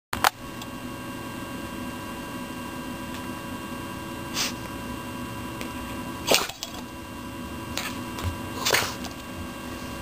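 Boston terrier sneezing several times in short, sharp bursts, the loudest about six seconds in, over a steady electrical hum.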